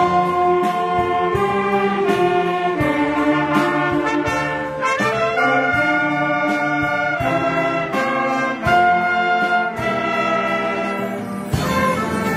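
A student orchestra playing a piece: held chords that change every second or so, over a steady beat of drum strokes.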